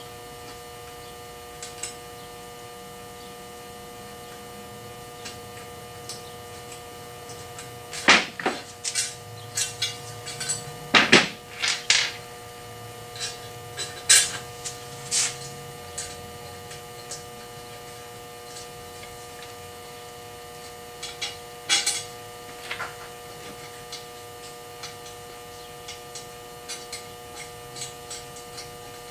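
Sharp metal clicks and clinks of screws, T-slot nuts and parts being handled and fitted loosely to a CNC router kit's frame. There is a dense run of them in the middle and a few more later, over a steady electrical hum.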